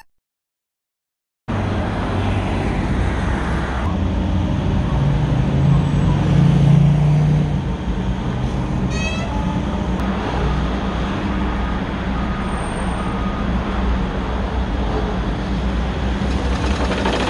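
Diesel engine of a Volvo wheeled excavator running as it drives through street traffic, starting after about a second and a half of silence; the engine note rises for a couple of seconds in the middle.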